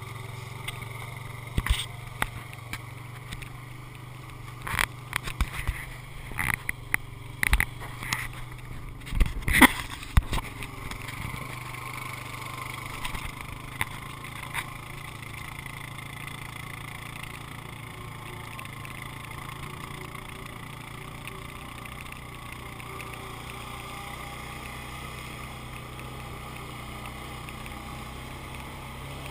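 ATV engine running steadily at a low drone while the quad is ridden over a rough dirt track. During the first ten seconds or so a string of sharp knocks and thumps breaks in, the loudest about nine to ten seconds in, as the machine jolts over bumps and brush; after that only the steady engine drone remains.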